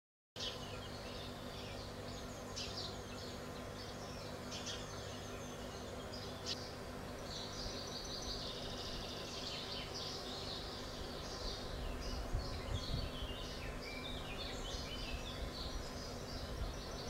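Birds chirping and twittering outdoors over a steady low rumble, the whole played back slowed to a tenth of normal speed. The chirps thicken in the second half.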